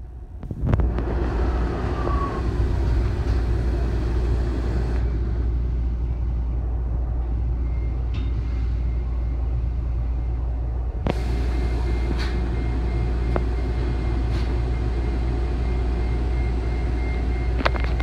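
Inside a 2016 Gillig Low Floor hybrid-electric city bus on the move: a steady low rumble of engine, drivetrain and road noise, with a few sharp knocks or rattles.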